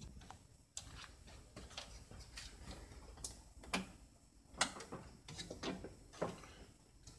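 Scattered light clicks and knocks of scrap boards and a fence jig being handled and set down on a table saw's metal top, with the saw switched off.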